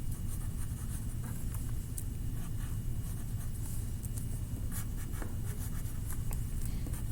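A drawing tool dabbing and scratching short, quick strokes on paper, irregular little taps, as snowflakes are drawn, over a steady low hum.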